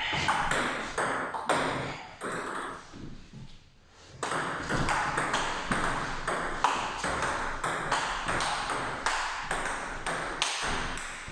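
Table tennis ball being hit by bats and bouncing on the table in a rally: sharp, quick pings. The pings thin out to a short lull about three and a half seconds in, then resume as a fast run of hits.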